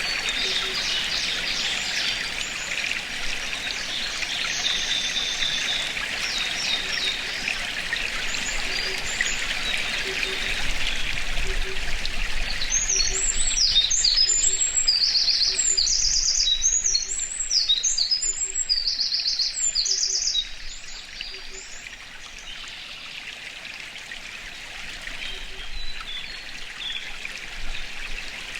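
A Eurasian wren sings one long, loud song of rapid trills and high notes, lasting about eight seconds, from near the middle. Softer bird notes come earlier. A stream runs steadily underneath throughout.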